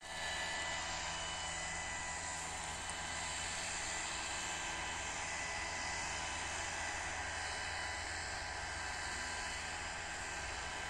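Small engine of a motorized backpack mist sprayer running at a steady drone while it blows out pesticide spray.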